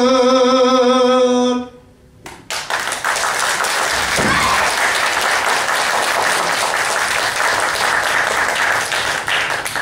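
A shigin chanter's long held closing note, wavering in pitch, ends about a second and a half in; after a brief pause, audience applause starts and carries on.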